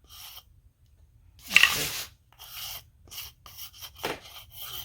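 Sanding block with 120-grit sandpaper rubbing along the edges of small wood pieces in a series of short strokes, the loudest about a second and a half in.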